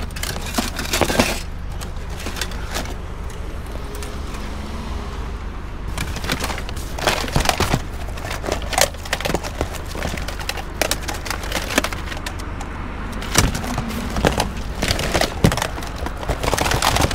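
Hands rummaging through a pile of discarded electronics: plastic and metal junk clattering and knocking in irregular clusters, over a steady low rumble.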